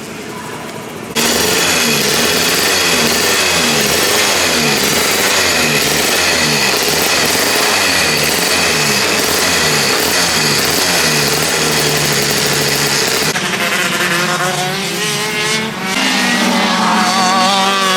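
Racing go-kart engines at high revs, their pitch climbing and dropping again and again as the karts accelerate and lift. The sound starts suddenly about a second in and changes near the end to slower rising and falling tones of karts passing.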